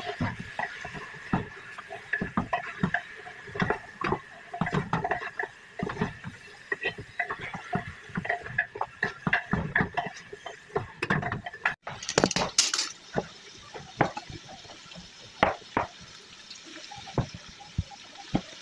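Seasoned raw ribs being mixed by hand in an aluminium pot: wet squelching and slapping with irregular knocks against the pot. A brief loud rustle a little past halfway, then sparser sharp knocks, which fit a knife cutting green pepper on a cutting board.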